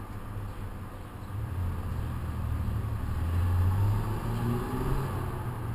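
Low mechanical rumble that swells about a second and a half in and holds, with a faint rising whine near the end.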